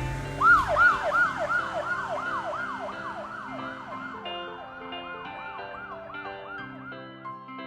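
Police siren sound effect in a fast yelp: repeated quick sweeps up and down, about three a second, starting about half a second in and gradually fading.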